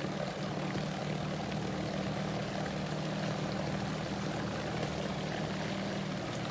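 Electric trolling motor on a small jon boat running steadily, a low, even hum.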